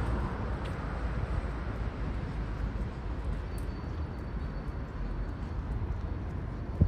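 Street traffic noise: a steady low rumble of passing vehicles, louder at the start and easing off over the first second. A single short thump comes near the end.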